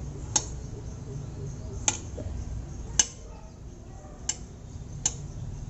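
Knife tapping and clicking against the container while cutting kinetic sand: five sharp, separate clicks a second or so apart, over a low steady hum.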